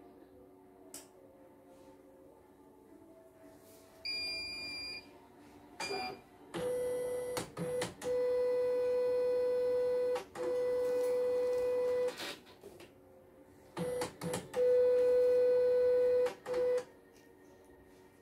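CNY computerised embroidery machine powering up: a short electronic beep, then a steady mechanical whine from its motors in two runs of several seconds with brief breaks.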